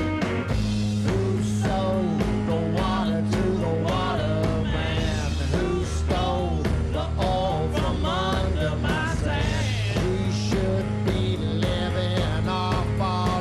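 Rockabilly band playing live: a steady beat of drums and bass under a lead line that slides and bends in pitch.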